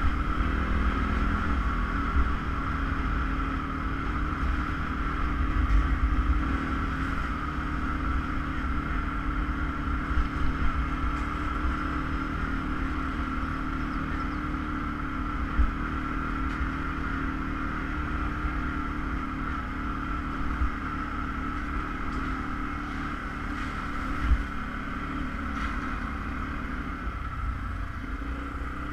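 ATV engine running steadily while riding: a low drone with a constant higher whine, and a few brief knocks along the way.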